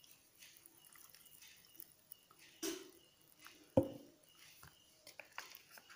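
Hot water poured from a plastic cup onto instant noodles, a faint trickling with small drips, and a sharp knock near four seconds in.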